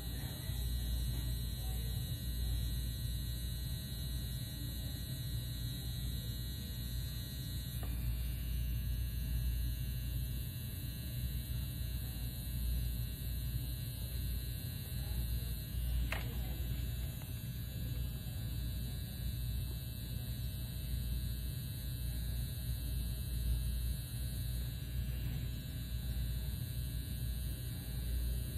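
Steady low machine hum from cosmetic laser equipment and its cold-air cooling hose running during an eyebrow treatment, with a single short click about 16 seconds in.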